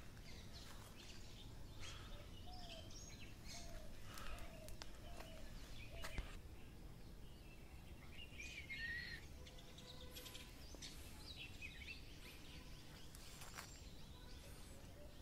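Faint outdoor birdsong: scattered chirps and short calls from several birds, with a louder trilled call about nine seconds in, over a low steady background rumble.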